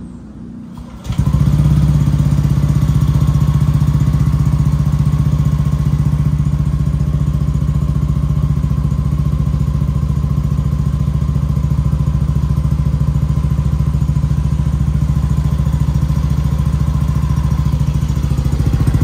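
Yamaha NVX scooter's single-cylinder engine idling steadily through an aftermarket slip-on exhaust. The sound comes in suddenly about a second in and holds an even pitch throughout.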